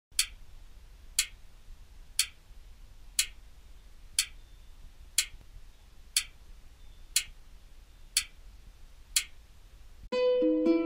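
Wall clock ticking once a second, ten sharp ticks in a row. About ten seconds in the ticking stops and gentle plucked music begins.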